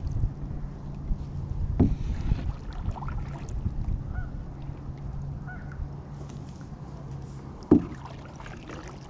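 A few faint goose honks over a steady low background of water and wind around a small plastic kayak, with two sharp knocks on the hull, the louder one near the end.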